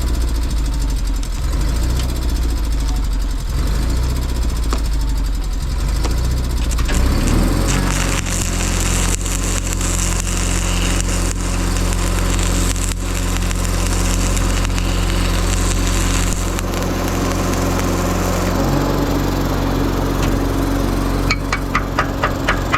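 Portable engine-driven welder running steadily; about seven seconds in its note changes as it takes load and the crackling hiss of a stick-welding arc runs for about ten seconds. Near the end a quick run of regular ticks, about three a second, starts.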